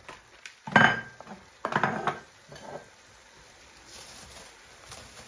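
Metal cookware clanking twice, sharp with a brief ring, followed by a fainter knock, then a low steady simmer from the pan of chicken tikka chaat.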